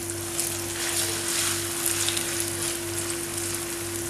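Plantain slices frying in hot vegetable oil: a steady sizzle with scattered small crackles.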